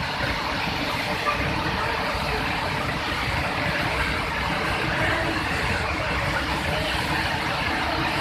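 Heavy floodwater pouring through the open spillway gates of a masonry dam and churning in the pool below: a steady, unbroken rush of water.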